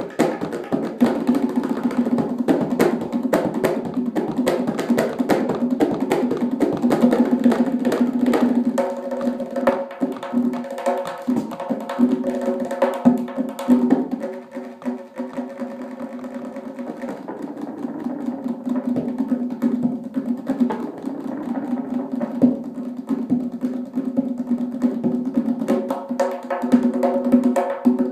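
Tonbak, the Persian goblet drum, played solo in fast, dense strokes over the steady ring of its drum head. It drops quieter about halfway through and builds back up near the end.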